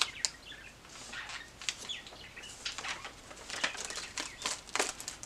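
Paper rustling as the thick, collaged pages of a large spiral-bound journal are handled and turned: a string of short, crisp swishes and flaps.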